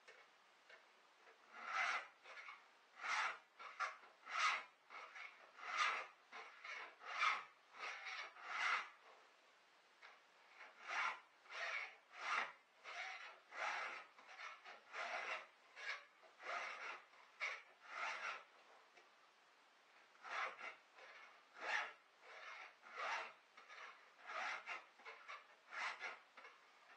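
Hand-filing the cutters of a chainsaw chain: a series of short rasping file strokes about one a second, pausing briefly twice as the file moves to the next tooth.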